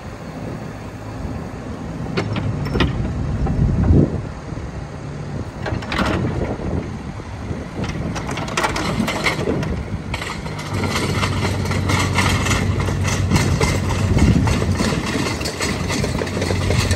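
Kubota KX155-3SZ mini excavator's diesel engine running and rising in load as the machine moves its hydraulics and turns, with a few clanks in the first six seconds. From about ten seconds in the engine works harder and a steady clatter joins it as the excavator travels on its rubber tracks.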